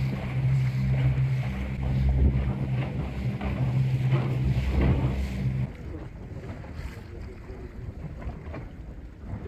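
Wind buffeting the microphone and choppy water lapping around a boat's inflatable tube. A low steady hum sits under it for the first half and stops abruptly about halfway through.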